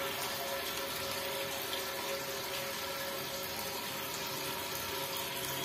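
Water running steadily into the bottom of a nearly empty toilet cistern, with a faint steady tone under the splashing.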